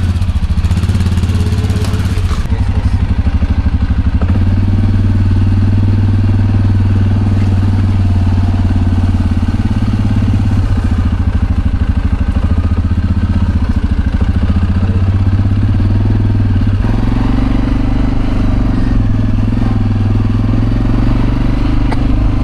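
A vehicle's engine running steadily at close range, its note shifting slightly about three-quarters of the way through.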